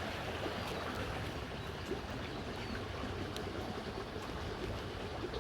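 Steady outdoor background noise with a few faint ticks.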